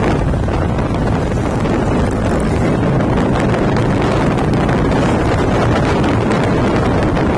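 Wind buffeting the microphone over the steady running of a Harley-Davidson V-twin motorcycle engine at cruising speed.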